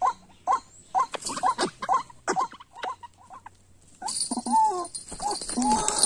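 White-breasted waterhen (ruak-ruak) calling: a rapid run of short, sharp notes that drop in pitch, two to three a second. About four seconds in, a different, louder sound with a high hiss and held pitched notes takes over.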